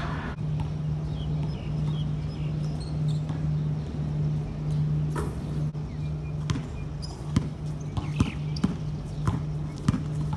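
A basketball being dribbled and bounced on an outdoor hard court, with scattered sharp bounces that come mostly in the second half, over a steady low hum.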